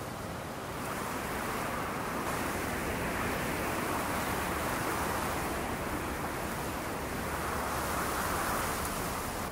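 Strong wind gusting across an open mountainside and over the microphone, a steady rushing that grows louder about a second in.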